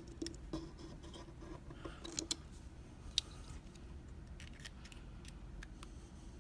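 Small metallic clicks and scrapes of a tool working the retaining clip off the plug of a BKS euro cylinder lock, irregular, with a few sharper clicks about two and three seconds in.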